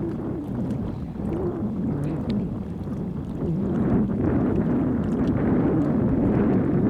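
A motorboat's engine droning as the boat passes on the open water, mixed with wind buffeting the microphone; the sound grows a little louder about four seconds in.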